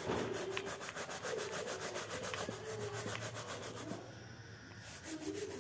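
Stiff plastic-bristle scrub brush scrubbing a soaped sneaker in quick back-and-forth strokes, about eight to ten a second. It stops briefly near the end, then starts again.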